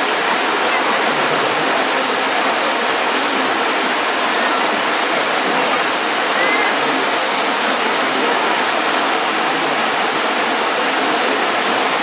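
Waterfall pouring over a rock ledge: a steady, even rush of falling water.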